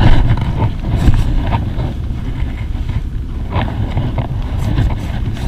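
Wind buffeting the microphone aboard a small boat: an uneven low rumble. A loud thump comes right at the start, and a few lighter knocks follow.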